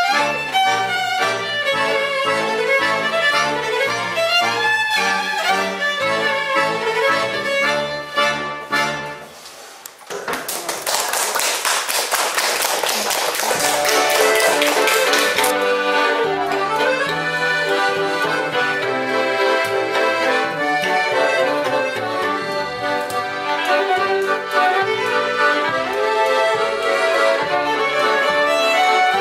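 Góral highland folk band of fiddle, accordion and double bass playing a tune that ends about nine seconds in. The audience applauds for about five seconds, then the band starts the next tune.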